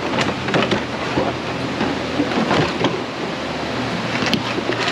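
Plastic inner fender liner being pulled and worked loose from a truck's wheel well: rustling and scraping with scattered knocks and clicks.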